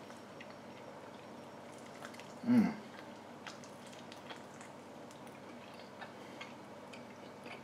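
A man chewing a bite of chicken wing, faint clicks and smacks of the mouth, with one short hum of his voice falling in pitch about two and a half seconds in.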